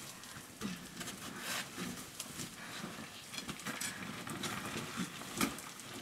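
Footsteps of several people crunching over gravel and loose rock on a cave floor, at an uneven pace.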